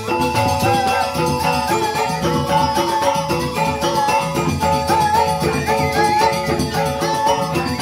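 Joged bumbung gamelan music: bamboo xylophones (grantang) playing a fast, repeating interlocking melody over a kendang drum rhythm.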